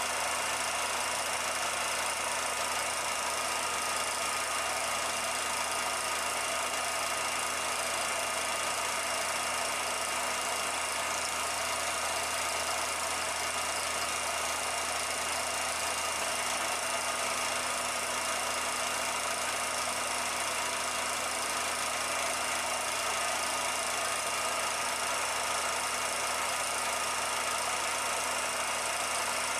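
Film projector running: a steady mechanical whir with a constant hum, unchanging throughout.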